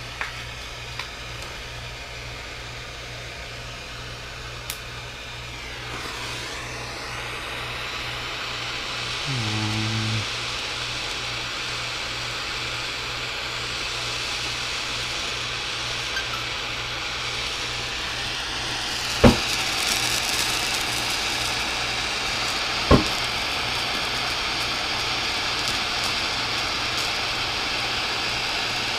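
Soldering torch flame hissing steadily while heating a heavy copper pipe joint on a radiator, its hiss growing stronger partway through. Two sharp knocks sound, about 19 and 23 seconds in.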